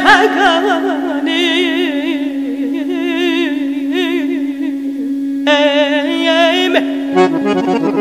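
Instrumental interlude of a traditional Caucasian folk song: a wavering, heavily ornamented melody played over a steady held drone note. The melody pauses briefly about five seconds in.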